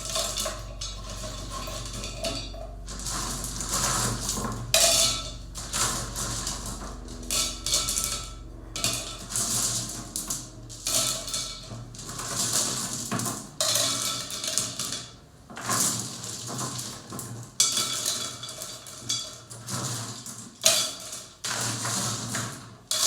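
River stones clattering and clinking as they are set by hand around a tin can in a pot. It is a string of irregular knocks with short pauses between them.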